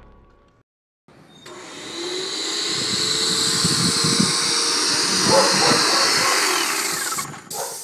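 Graco airless paint sprayer running: a loud, steady hiss with motor noise beneath it that starts about a second in and cuts off suddenly near the end.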